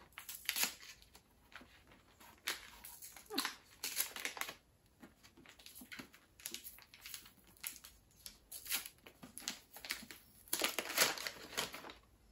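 Paper gift wrapping being unfolded and peeled back by hand, crinkling and rustling in irregular bursts, loudest about ten seconds in.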